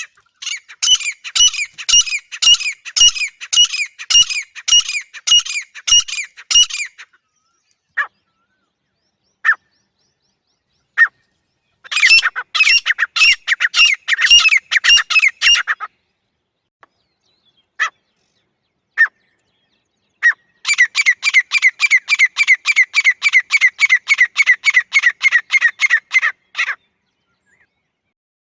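Female grey francolin calling: three long runs of rapidly repeated sharp notes, with single notes in between. The last run is faster than the first.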